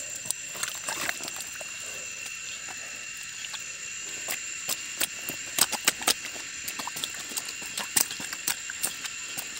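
Rubber boots stepping through wet paddy-field mud: an irregular run of squelches and wet smacks. Two steady high-pitched tones run underneath.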